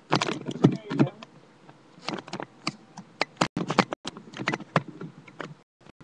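A rapid, irregular run of sharp clicks and crackles, thickest in the first second and again near the end.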